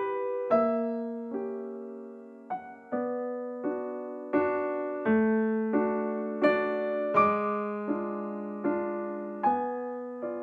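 Background music: slow, gentle solo piano, a note or chord struck about every three-quarters of a second and left to fade.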